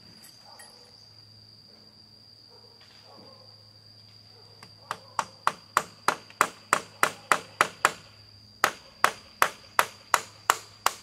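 Hammer driving nails into a timber ladder frame: sharp, even strikes about three a second starting about halfway through, a short break, then more strikes.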